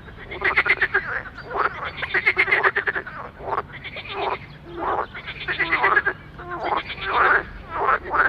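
Green water frog croaking: a series of about six rattling, rapidly pulsed calls, each about a second long, made as its vocal sacs inflate at the corners of the mouth.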